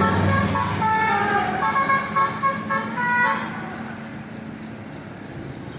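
Basuri musical horn on a large vehicle playing a quick melody of short stepped notes over the low rumble of its engine; the tune stops after about three seconds and the engine noise fades as the vehicle moves off.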